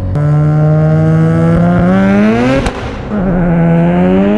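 Mazda RX-7's 13B-REW rotary engine under hard acceleration, its pitch climbing through one gear, then a sharp crack and a short drop as it shifts about two and a half seconds in, then climbing again through the next gear. The crack at the shift is typical of this rotary lighting unburnt fuel in its exhaust.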